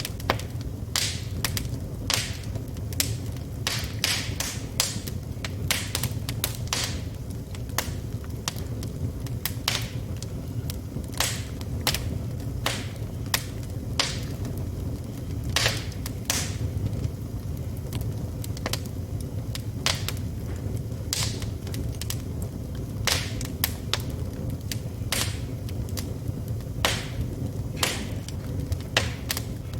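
Wood fire burning in a fireplace: a steady low rumble of flames with irregular sharp crackles and pops from the burning logs, several a second.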